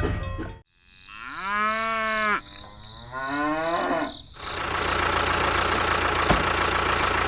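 A cow mooing twice in quick succession, the first call rising and then holding. A steady engine idling hum follows.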